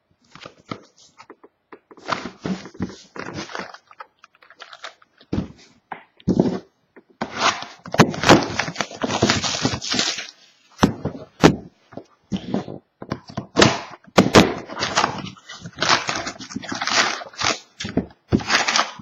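Plastic shrink-wrap and a cardboard trading-card box being torn open and handled: a string of sharp crinkles, rips and knocks, sparse at first and busy from about seven seconds in.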